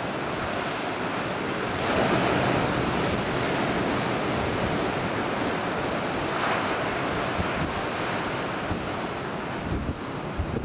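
Ocean surf: waves breaking and washing in a continuous roar, swelling louder about two seconds in and again about six seconds in, with wind buffeting the microphone.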